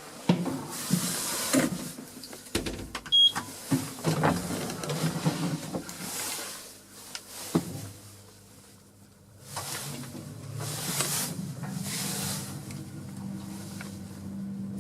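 Small Schindler passenger lift in use: scattered clicks and knocks with a short high beep about three seconds in, then from about halfway a steady motor hum as the car travels.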